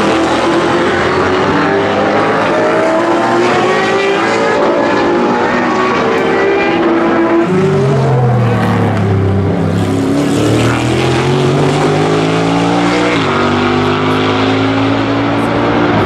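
Race car engines at speed, led by the deep V8 of the NASCAR Next Gen Chevrolet Camaro ZL1; the note eases down in pitch as the cars pull away. About seven seconds in, a louder, deeper engine note comes in, drops in pitch, then climbs again with a gear change near the end.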